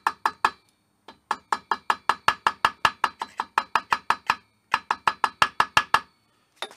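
Small ball-peen hammer tapping gasket material against the edges and bolt holes of a metal housing, marking out the gasket's outline and holes for cutting. The light, quick taps come about five a second in three runs, with short pauses between them.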